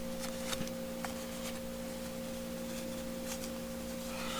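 A steady background hum with a clear pitch, with a few faint clicks and taps from a small hard tool case and its bag being handled.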